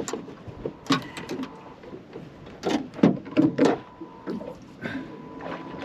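Irregular knocks and clatter, in a short cluster about a second in and a busier one around three seconds in, over a faint steady whine.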